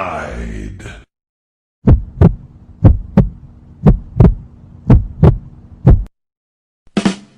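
Heartbeat sound effect: paired lub-dub thumps about once a second, four or five beats, over a faint steady hum. The tail of another effect fades out at the start, and a new sudden sound begins near the end.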